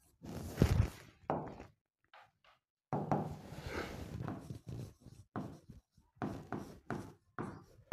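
Hand and pen knocking and tapping against an interactive whiteboard screen while writing on it and selecting from its menu. There is a heavier thump about half a second in, then a run of short, irregular taps.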